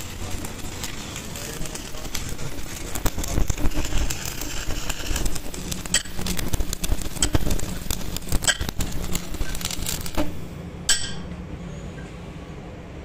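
Stick arc welding on a steel truck axle housing: the arc crackles and spits irregularly, then stops about ten seconds in. A sharp metallic clink follows near the end.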